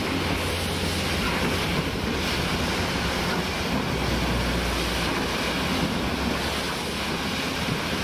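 Steady rush of water churning in a snow channel, with heavy diesel machinery running low underneath and wind buffeting the microphone.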